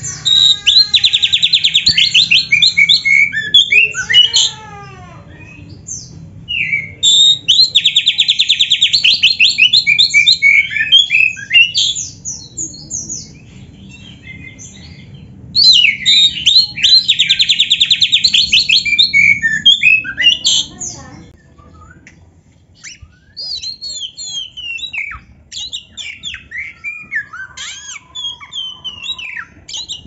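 Oriental magpie-robin (kacer) singing in three loud bouts, each holding a fast rattling canary-like trill, its song full of mimicked canary phrases. Later, quieter and varied whistles and scratchy notes follow.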